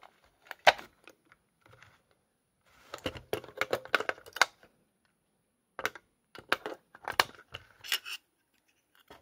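Small button-cell batteries and the plastic battery compartment of a handheld toy being handled: a series of small clicks and rattles as the batteries are fitted in, a cluster of them about three seconds in and several sharp clicks later.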